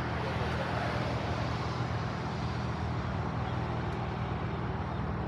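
Steady outdoor background noise: a continuous low rumble with an even hiss over it, with no distinct events.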